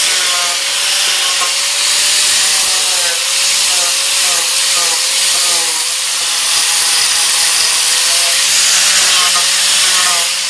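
Angle grinder with a King Arthur's Tools Holy Galahad grinding disc carving into wood: a steady motor whine that wavers slightly, over a loud hiss of the disc abrading the wood.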